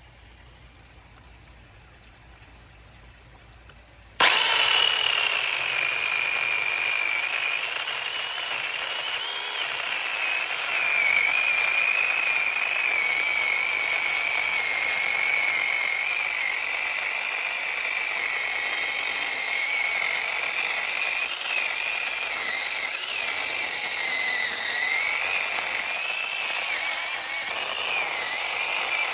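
Peektook 6-inch battery-powered mini chainsaw starting suddenly about four seconds in and running with a high electric whine. Its pitch wavers and dips as the chain cuts through a branch.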